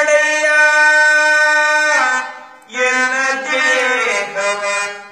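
Devotional vachana singing by a man's voice with harmonium accompaniment: a long held note, a short break about two seconds in, then a new sung line with moving pitch.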